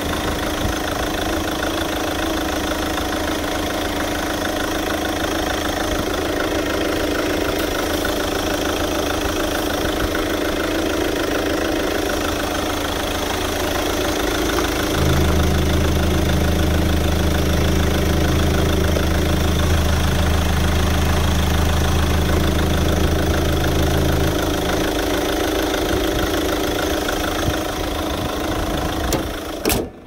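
Chevrolet Winstorm (Captiva) 2.0 VCDi four-cylinder diesel idling steadily with the bonnet open. About halfway through, a deeper, louder hum joins for about ten seconds while the oil filler cap is taken off the running engine.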